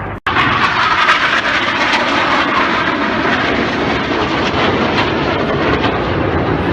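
BAE Hawk T1 jet trainers flying overhead, their jet engines making a loud, steady rush of noise that starts abruptly.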